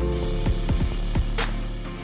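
Background music with a steady beat: electronic-style track with bass, drums and pitched synth or guitar parts.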